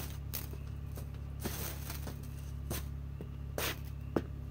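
Hot pieces of ferrocerium rod bursting and sparking on concrete: sharp cracks at irregular intervals, a short fizzing hiss about a second and a half in, and the loudest crack near the end.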